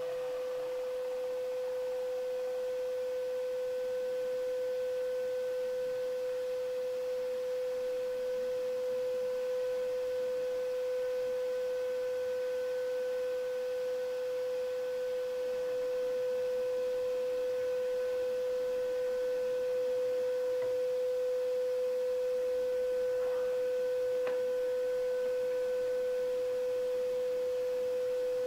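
A steady, unchanging single-pitched tone, a pure hum with faint overtones, holding one pitch throughout.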